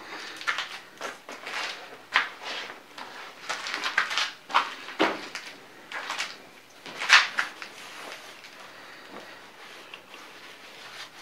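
Hands and a rag handling a wet cast-iron Bridgeport rotary-table housing on a towel, heard as a string of short irregular rubbing and scuffing noises. The loudest comes about seven seconds in, and it is quieter after that.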